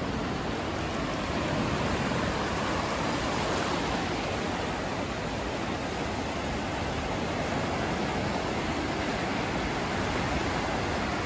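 Small sea waves breaking and washing up a sandy shore: a steady, unbroken rushing noise.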